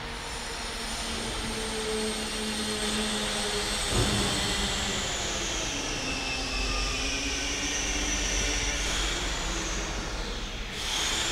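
A steady mechanical drone with a low hum and a thin high whine that slowly falls and then rises in pitch; the level dips briefly near the end.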